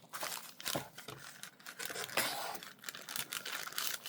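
Paper and plastic packaging being rustled and handled, with scattered small clicks and taps, as stationery items are unwrapped.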